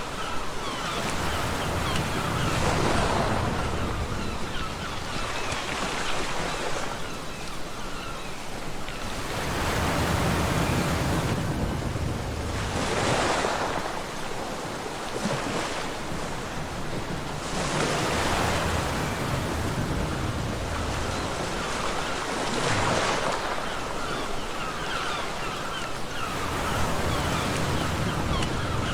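Ocean surf on a beach, waves breaking and washing in, swelling and fading every few seconds.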